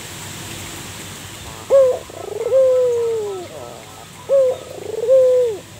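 Zebra dove (perkutut) cooing: two song phrases, starting a little under two seconds in, each a short clipped note, a quick stuttering run, then a long note that falls in pitch.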